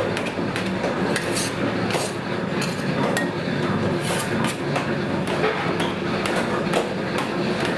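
Food-stall kitchen clatter: irregular knocks and clinks of utensils and cookware, several a second, over a steady low hum.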